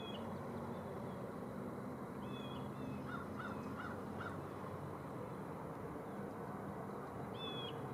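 Distant birds calling over a steady low hum: short high calls at the start, about two seconds in and near the end, and a run of four quick calls about three seconds in.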